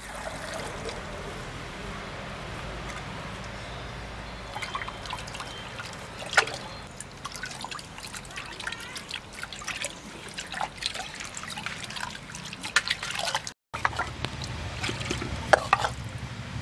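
Wet masala paste being ground with a stone pestle in a traditional stone grinder (aattukal): wet squelching and dripping with scattered clicks and knocks of stone and paste. The clicks start a few seconds in and grow denser near the end.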